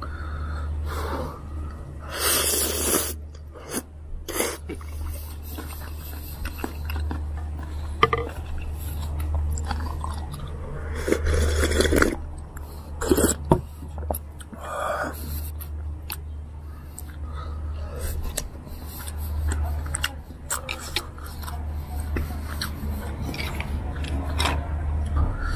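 Someone eating chicken noodle soup close to the microphone: chewing, several noisy slurps and a few sharp clicks, over a steady low hum.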